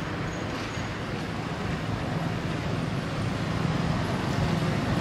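Steady hum of road traffic with a low engine drone that slowly grows louder, as of a vehicle approaching.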